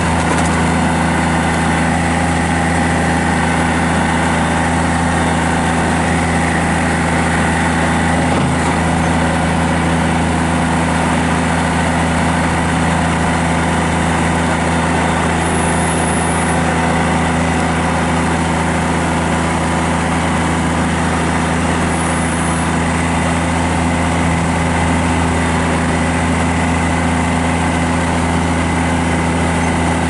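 2005 Kubota BX23 sub-compact tractor's three-cylinder diesel engine running steadily at an unchanging pitch while it powers the backhoe as the boom and bucket are worked.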